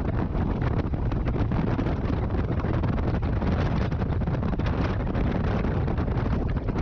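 Wind buffeting the microphone over the running of a Harley-Davidson touring motorcycle's V-twin engine while riding at steady speed.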